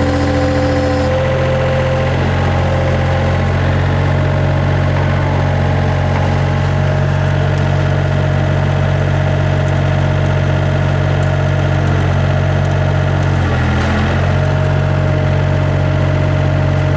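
Mustang skid steer engine running steadily, with a thin steady higher tone over the engine note. The engine note changes briefly about thirteen seconds in.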